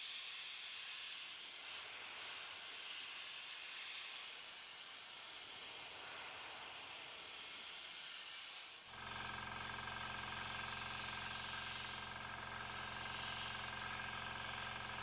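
Airbrush hissing as it sprays paint in short passes, the hiss swelling and fading several times. A low steady hum comes in about nine seconds in and runs under it.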